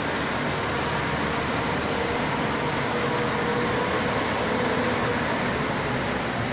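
Small dump truck loaded with sand, its diesel engine running steadily as the truck drives slowly forward.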